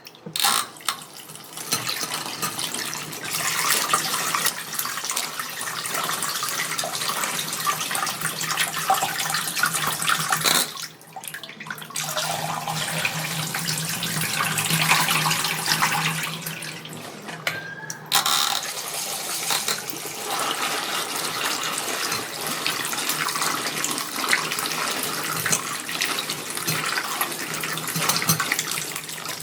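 Vegetables being washed by hand under a running tap in a sink: a steady splashing stream of water that twice drops away briefly.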